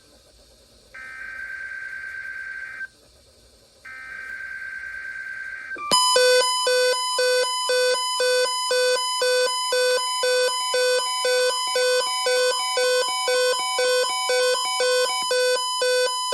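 NOAA Weather Radio required weekly test alert. Two buzzing bursts of SAME digital header data, each about two seconds long and a second apart, are followed about six seconds in by the loud, steady 1050 Hz warning alarm tone, with a pulsing beep about twice a second over it.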